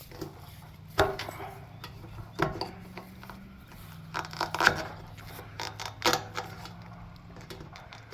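Scattered clicks, knocks and rubbing of parts being handled and worked loose by hand, the loudest taps about a second in, two and a half seconds in, and again around four to six seconds in. A steady low hum runs underneath.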